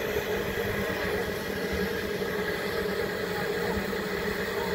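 Narrow-gauge locomotive standing idle at the platform, giving a steady, even engine hum.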